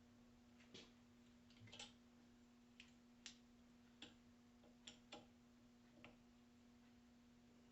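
Near silence: about eight faint, irregular clicks and ticks over a steady low hum.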